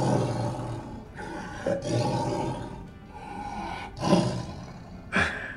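Recorded big-cat roars and growls played through a museum exhibit's loudspeaker, coming in several rough bursts.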